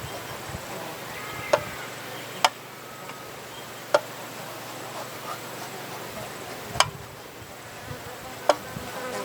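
Five sharp hammer blows on metal at uneven intervals, one with a brief metallic ring after it, as the metal is cold-forged by hand.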